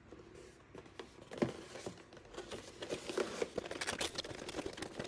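A cardboard gift box being handled and its paper wrapping and tape peeled off: rustling, crinkling and small tearing sounds, getting busier after about two seconds.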